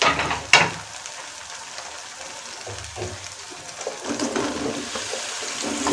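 A steel spatula knocks and scrapes twice against an aluminium kadai near the start, then thick onion-tomato masala sizzles faintly in the pan. About four seconds in, cut mushrooms tumble in from a bowl.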